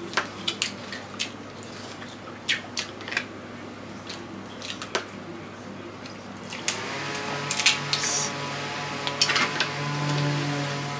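Sharp cracks and clicks of boiled crab shells and claws being broken apart by hand while eating. About two-thirds of the way in, steady music starts up underneath.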